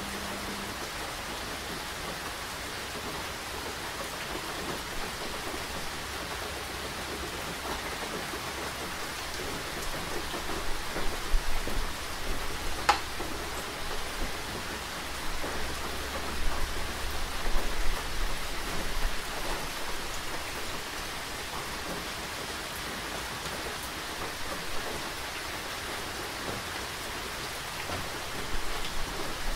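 Steady rain falling, with a stretch of louder, uneven drops hitting a surface in the middle and a single sharp click about halfway through.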